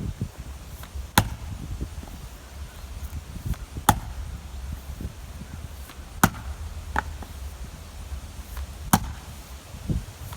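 Fiskars 36-inch steel splitting axe striking and splitting sugar maple rounds: four sharp cracking blows about two and a half seconds apart, with a weaker knock and a low thud between them as pieces split and fall.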